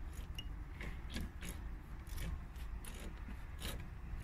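Faint, irregular metallic clicks and scrapes of a brake caliper bolt being worked by hand into its threads on a Dodge Caravan's rear brake, as it is lined up and started.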